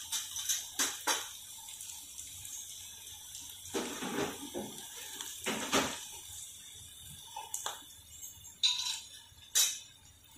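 Scattered clinks and knocks of steel kitchen utensils and spice containers being handled, about a dozen, some ringing briefly and the loudest near the end, over a faint steady hiss.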